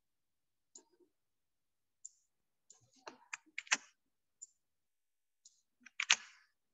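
Computer mouse clicking: small sharp clicks scattered apart, with a louder cluster about halfway through and one loud click near the end.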